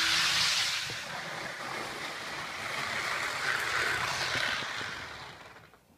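ICE 3 model train running at speed on its track: a rushing rattle of wheels and motor that swells as the train passes close, right at the start and again about four seconds in, then dies away near the end.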